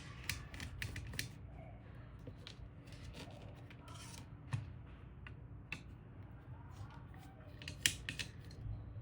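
Irregular small clicks and taps of parts being handled while a mini PC is worked on, with a few close together about a second in and the sharpest pair near the end, over a low steady hum.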